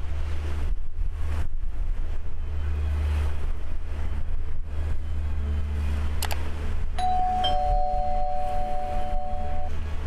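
A low rumble of wind on the microphone carries on underneath. About six seconds in there is a sharp mouse-click sound effect, then a two-note doorbell chime, high then lower, that rings for about two and a half seconds: the sound effect that goes with a subscribe-button reminder.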